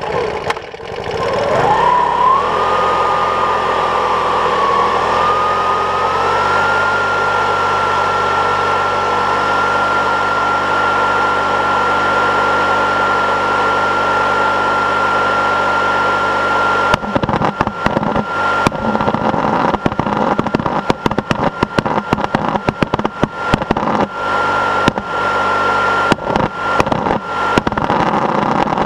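An air blower spins up with a rising whine and then runs steadily, blowing air into a homemade stainless-steel pulse jet. A bit over halfway through, irregular sharp pops and cracks break in over the blower as the fuel lights and the pulse jet sputters, trying to catch.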